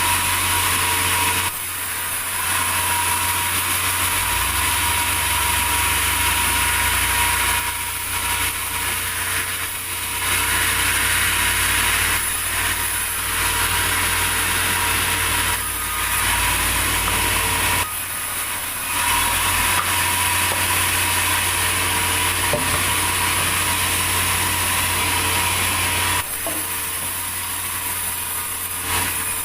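Sawmill saw cutting through a large durian log, running steadily with a few brief dips in level.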